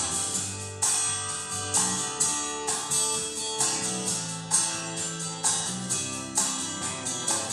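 Rock-style music with guitar and a steady drum beat played back through Magnat Monitor Supreme hi-fi loudspeakers for a sound check.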